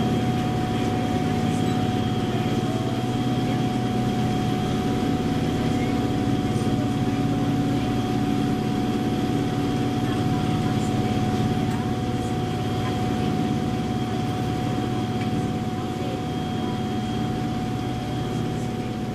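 Steady running noise of a moving train heard from inside the carriage: a constant hum of motor or engine tones over rolling noise, easing a little near the end.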